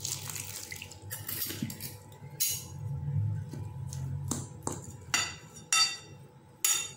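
Water poured from a glass onto a plate of banana and flour, then a metal spoon mashing the mix and clinking and scraping against the ceramic plate in several separate strikes.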